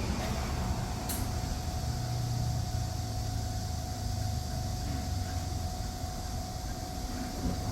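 A motor running steadily with a low hum, joined just after the start by a thin steady whine; a short click about a second in.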